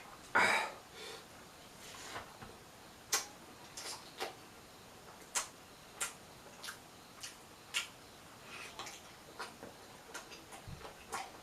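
A person eating close to the microphone: chewing and mouth clicks, irregular short clicks spaced a second or so apart, with one louder noisy burst about half a second in.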